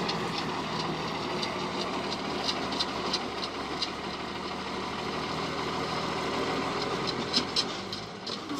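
Heavy vehicle engine running steadily, with a few short metallic clicks scattered over it.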